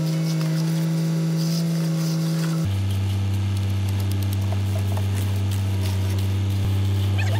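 Ready-mix concrete truck's diesel engine running steadily while it discharges concrete down its chute. Its note drops suddenly to a lower pitch a little under three seconds in.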